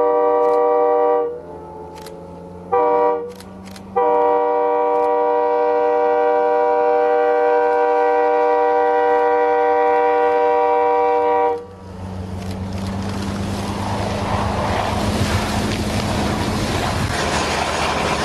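Diesel locomotive's air horn sounding for a grade crossing: a steady chord in blasts, one long ending about a second in, a short one near three seconds, and a long one from four seconds until near twelve seconds. Then a rising rush of noise as the snow-plow train blasts through the drifts past the crossing, its engine humming low underneath.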